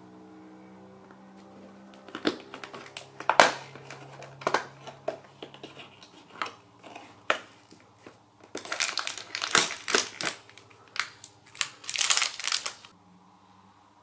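Cardboard door of an advent calendar being pushed in and torn open, then a small plastic HARIBO Goldbären sweet packet crinkling as it is pulled out of its compartment and handled. The crackles come in irregular bursts and are densest in the second half.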